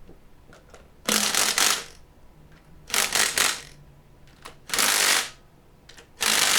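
Ratchet wrench clicking in four quick bursts about every second and a half, its pawl ratcheting on each back-swing as new cylinder-head bolts are run down on a Ford Model T engine.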